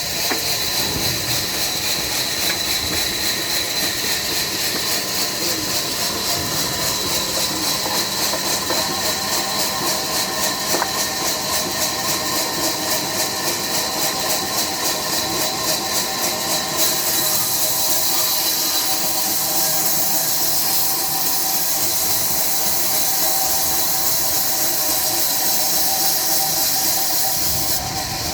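Diesel-driven sawmill running: a loud, steady mechanical rush and hiss with a fast regular pulse. About two-thirds of the way through, the high hiss turns brighter and smoother.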